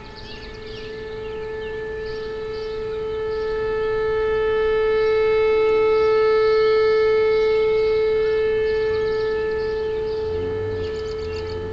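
Outdoor civil-defense warning siren sounding one steady tone, swelling to its loudest about six seconds in and then fading. Birds chirp over it, and a second, lower tone joins near the end.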